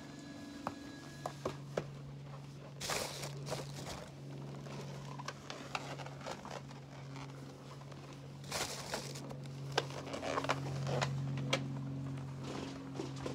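Rustling and light clicks of latex balloons being handled and pressed into a balloon garland, over a steady low hum.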